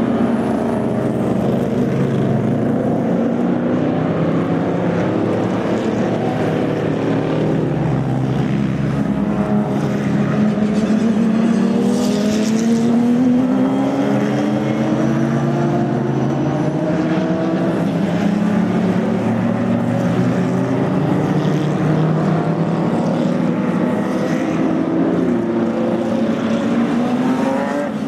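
Racing cars' unsilenced engines running hard past the track edge, several at once, their pitch rising and falling with throttle and gear changes without a break.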